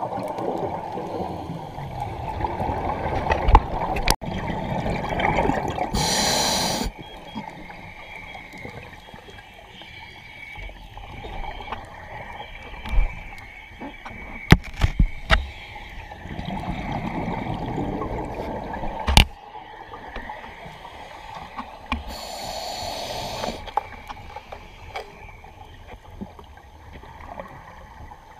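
Scuba regulator breathing heard underwater: two hissing inhalations, about 16 seconds apart, with the rumbling bubble stream of exhaled air between them. A few sharp clicks and knocks come in between.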